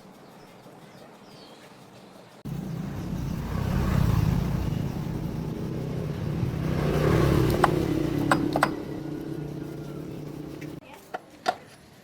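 An engine comes on suddenly about two and a half seconds in, runs with a rising and falling level for about eight seconds, and stops abruptly. A few sharp clicks come during and just after it.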